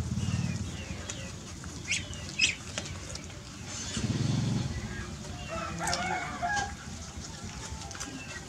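Chickens clucking, with scattered short high chirps and a busier run of clucks about six seconds in.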